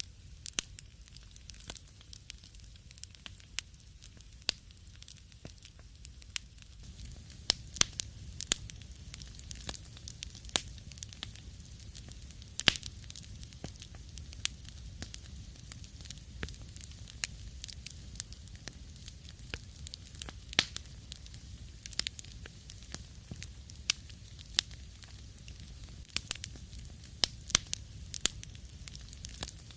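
Wood fire crackling in a fireplace: irregular sharp pops and snaps over a low steady rumble of the flames, the pops growing louder and more frequent about seven seconds in.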